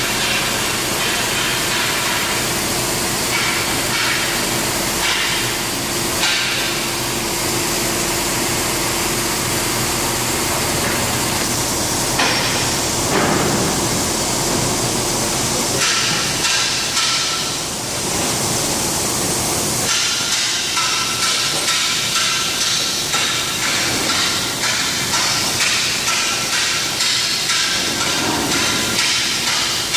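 Loud, steady hissing rush of workshop background noise. From about two-thirds of the way in, a regular knocking of roughly one to two beats a second joins it.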